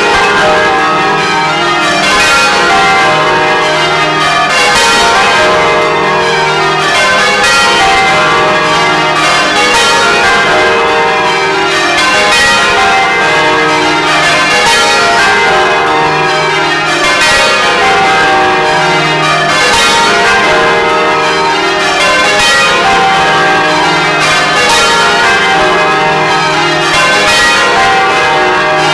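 A ring of twelve church bells rung full-circle in change ringing, heard loud from inside the belfry: a fast, steady succession of strikes whose tones overlap and ring on. The 10th, 11th and tenor bells have wooden-shafted clappers.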